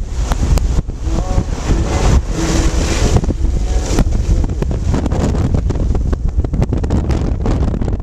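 Strong wind buffeting the microphone in a snowstorm: a steady low rumble with irregular crackles and gusts. Faint music lingers in the first few seconds.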